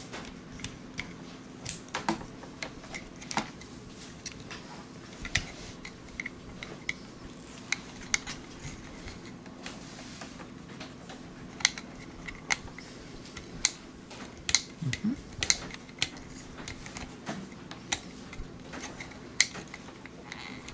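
Scattered small clicks and knocks of hands handling a Makeblock mBot robot kit, its metal chassis and battery holder, while plugging sensor cable connectors into the control board's ports.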